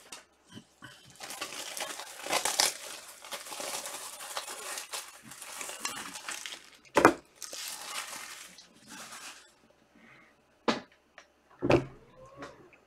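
Plastic wrapping crinkling and tearing as a trading-card box or pack is opened, going on for several seconds, with three sharp clicks or knocks in the second half.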